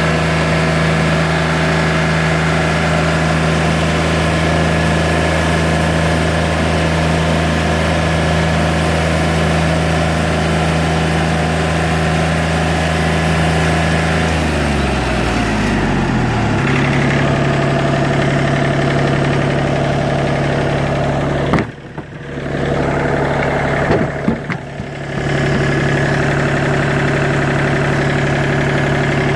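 Portable band sawmill's engine running steadily. About halfway through its pitch slides down and settles into a new steady note, and the sound briefly drops away twice near the end.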